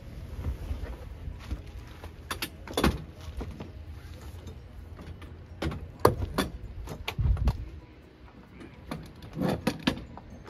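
A canvas bimini top being raised and pulled into place on its stainless-steel tube frame: a series of sharp metallic clacks and knocks with rustling between them, several close together about six seconds in and again near the end.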